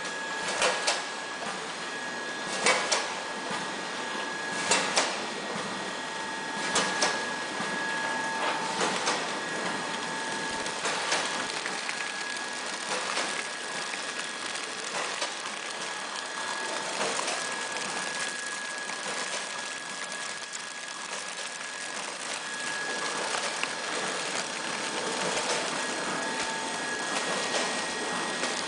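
DXDZ 450 horizontal flow-pack wrapping machine with automatic biscuit feeder running: a steady mechanical hum with a high whine, and sharp clacks about every two seconds, strongest in the first half.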